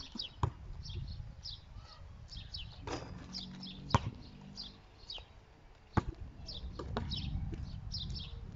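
Birds chirping, with short high calls repeating throughout. A basketball knocks sharply four times, the loudest about four seconds in.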